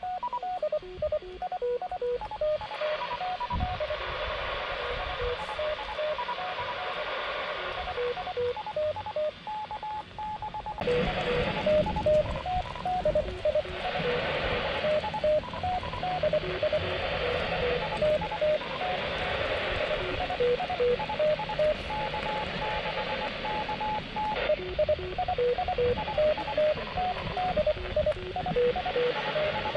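Handheld amateur radio receiving a hidden fox-hunt transmitter: a steady string of short beeps at a few different pitches over radio hiss. The hiss grows louder about eleven seconds in.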